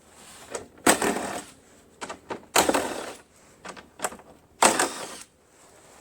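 Impact driver hammering in three short bursts, each about half a second long, while backing out the cover bolts, with small clicks of handling in between.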